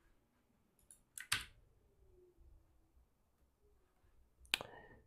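A few faint clicks of a computer keyboard and mouse: two close together about a second in and another near the end, with near silence between.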